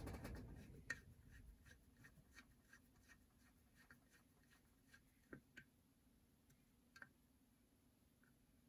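Faint, scattered small clicks and taps of small model parts being handled during reassembly of an HO scale model locomotive, a few a little louder about one, five and a half and seven seconds in. A low noise fades away in the first second and a half.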